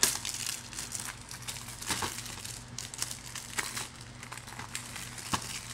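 Thin plastic shrink wrap crinkling and tearing as it is peeled off a Blu-ray case by hand, with irregular crackles and a few sharper ticks.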